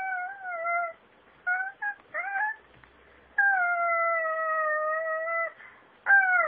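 A toddler singing wordless high notes. A few short wavering notes come first, then one long held note of about two seconds, then a swoop that falls steeply in pitch near the end.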